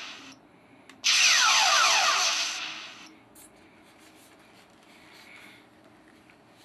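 Master Replicas Star Trek assault phaser prop replica firing: its electronic phaser sound effect plays once, starting about a second in. It is a high hiss laced with repeated falling sweeps, and lasts about a second and a half before fading out.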